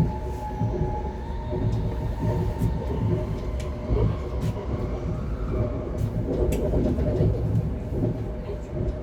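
Passenger train running, heard from inside the carriage: a steady low rumble with a faint steady whine and light scattered clicks from the track.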